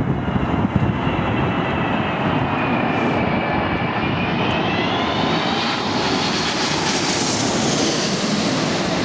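Jet airliner on landing approach passing low overhead, its turbofan engines giving a whine of several tones that dips and then rises, with a rushing hiss growing strongest near the end. Gusts of wind rumble on the microphone.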